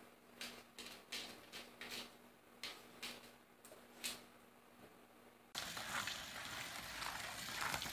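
A dog squirming on a bath mat: a run of short, scratchy scuffs, about two a second, over a faint steady hum. About five and a half seconds in, this cuts abruptly to a louder, steady noise.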